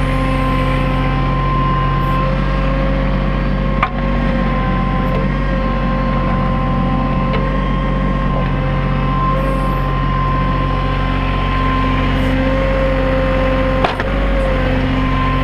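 New Holland TC33D compact tractor's diesel engine running steadily under backhoe work, with a steady high whine over it. Two sharp knocks, about four seconds in and again near the end.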